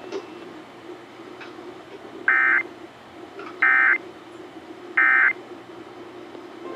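Emergency Alert System end-of-message signal: three short, identical bursts of warbling digital data tone, each about a third of a second and spaced a little over a second apart, marking the end of the alert. A faint steady hum runs underneath.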